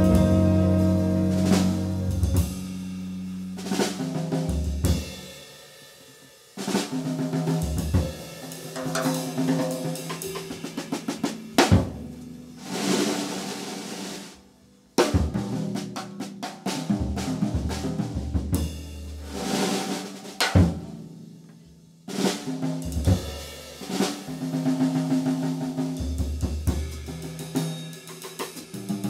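A held chord from the jazz band dies away in the first couple of seconds, then a drum kit solo played with sticks, mostly on the snare with cymbals and bass drum, in uneven phrases of rolls and strikes with short pauses between them.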